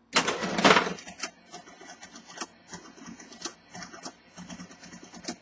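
Sharp XE-A101 cash register completing a cash sale: a loud rattle in the first second as the cash drawer springs open, then the built-in receipt printer running in a string of irregular clicks.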